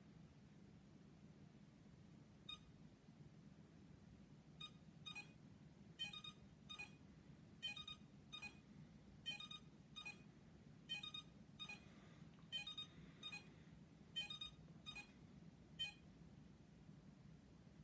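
iLife V5 robot vacuum cleaner giving a long irregular run of short high electronic beeps, often in quick pairs, while on charge. The beeping starts a couple of seconds in and stops near the end. It is the charging fault the owner is showing: the robot cleans normally, but he says there's something wrong with it.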